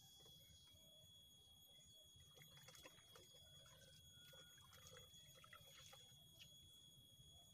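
Faint splashing and trickling of water as hands work in a bucket of water, with small clicks and rustles in two short clusters. A steady high tone runs underneath.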